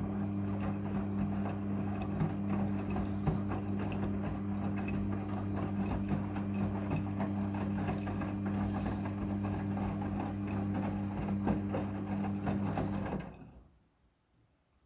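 Midea front-loading washing machine running with a steady low hum and a faint crackle and clicks over it. It stops about 13 seconds in.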